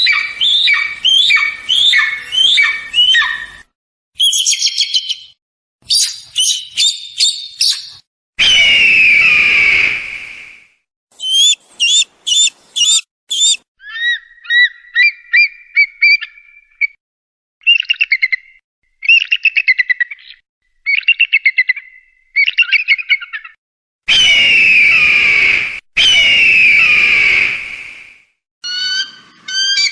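Eagle calls played as a series of separate clips with short silences between them. There are runs of quick, rising piping notes, bursts of rapid high chattering, and twice a long, loud, descending scream.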